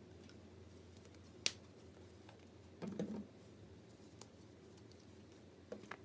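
A handful of small clicks and knocks as paint bottles, jars and lids are handled and set down on the work table: a sharp click about a second and a half in, a short cluster of knocks around the middle, and two more clicks near the end.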